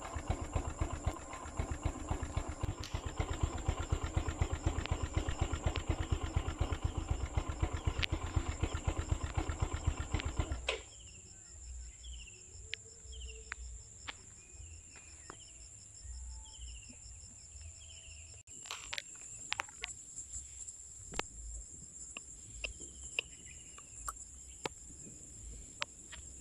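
A vehicle engine idling with a rapid low pulsing, which stops abruptly about eleven seconds in. After that, quieter bush sounds: a bird repeating short falling chirps, a steady high insect trill, and scattered clicks.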